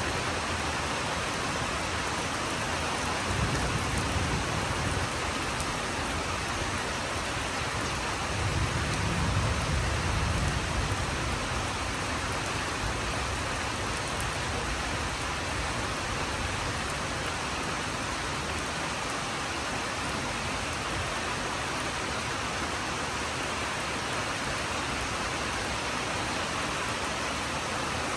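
Steady rain falling, an even dense hiss throughout, with two low rumbles rising out of it, one a few seconds in and a longer one about eight seconds in.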